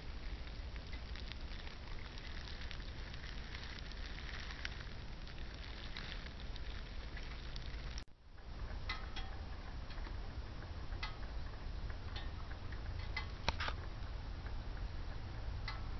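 Outdoor ambience picked up by a handheld camcorder in woods: a steady low rumble with scattered crackles and ticks throughout. About halfway in the sound breaks off briefly at a cut, then resumes with a few sharper clicks.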